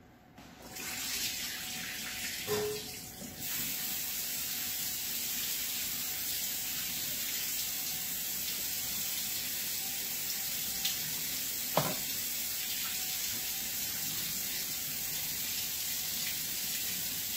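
Water running from a kitchen tap into a sink as soaked cashews are rinsed under it. The flow starts about a second in and runs steadily, with one light knock near the middle.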